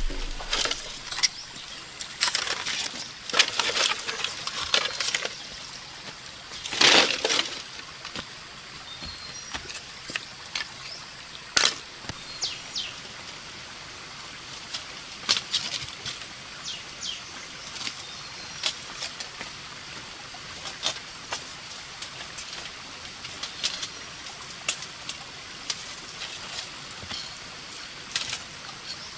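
Lengths of split bamboo being handled and knocked together: a dense run of sharp clacks and taps in the first several seconds, with a louder rustling crack about seven seconds in, then sparser clicks. Underneath, the steady rush of a small stream.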